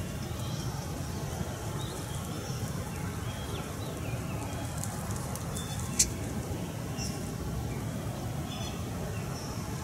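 Scattered short bird chirps over a steady low rumble, with one sharp click about six seconds in.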